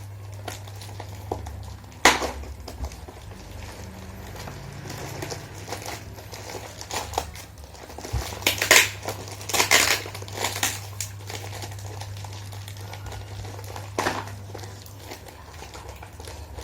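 Packaging being crinkled and pulled at while someone struggles to open it, in scattered bursts with a few sharper crackles, over a low steady hum.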